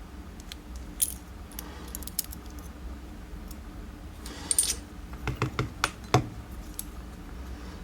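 Small metal lock parts, pins and springs from a disassembled padlock core, clicking and rattling as they are handled on a mat. A brief rattle comes about halfway through, then several sharper clicks and knocks follow.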